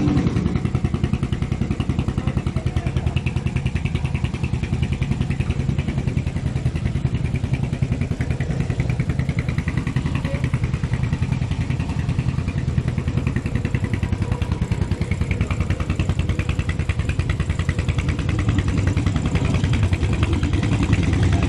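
A motorcycle engine runs steadily at idle, a dense, even run of low firing pulses. It grows a little louder near the end as a bike rides up across the cobbles.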